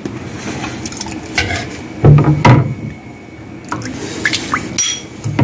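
Broth being ladled and poured into a ceramic bowl: liquid splashing and dripping, with a metal ladle and spoon knocking against the bowl, loudest about two seconds in.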